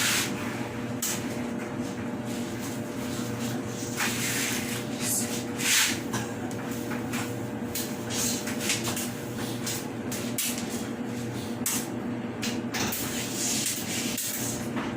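Whirlpool gas dryer running with its drum turning on a newly fitted belt: a steady motor hum with repeated swishing and rubbing noises from the tumbling drum.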